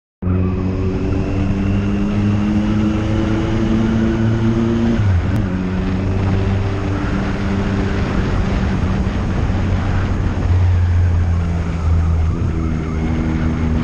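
Engine of the camera vehicle running at fairly steady revs over a constant rush of road and air noise. The engine note dips and shifts about five seconds in, then shifts again near the end as the revs change.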